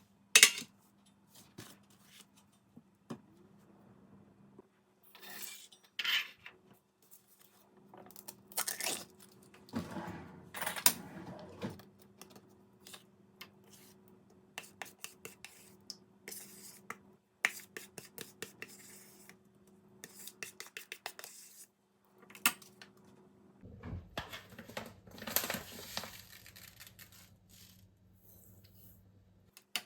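Kitchenware being handled: cups, dishes and spoons clinking, knocking and scraping in a run of separate small impacts, over a faint steady hum.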